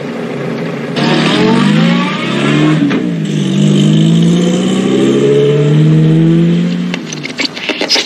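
Car engine accelerating through the gears: its pitch rises, drops at a gear change about three seconds in, then rises again. Near the end there is a quick run of clicks and crackles.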